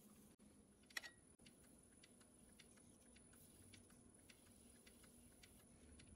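Near silence: a wood lathe turning slowly with a faint, steady low hum, and scattered light ticks, with one sharper click about a second in.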